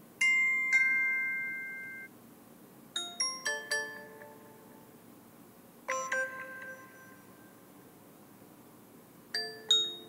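Amazon Alexa doorbell chime presets playing as previews, one after another. First a two-tone electronic chime that rings out for about two seconds ("Page"). About three seconds in comes a quick run of four notes ("Pattern"). A short chime follows near six seconds ("Sonar"), and two quick notes come near the end (start of "Traditional").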